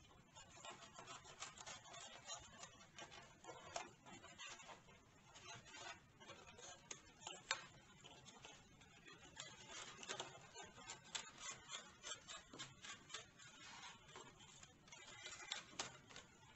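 Utility knife blade cutting through a styrofoam sheet: faint, irregular scratching and crackling of the foam.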